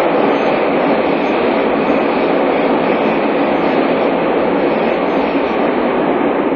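Tobu 30000-series electric train running at speed through a subway tunnel, heard from inside the car: a loud, steady rumble of wheels on rail.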